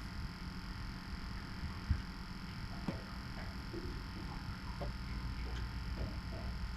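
Low steady hum of the trolling boat's motor, with a steady faint high whine over it and a few soft knocks and clicks, about two and three seconds in.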